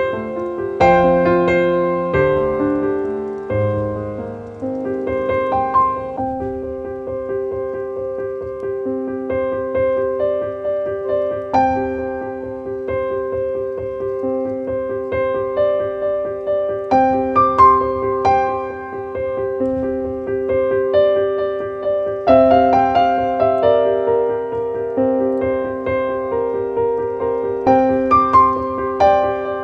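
Background piano music: slow, gentle notes over sustained chords.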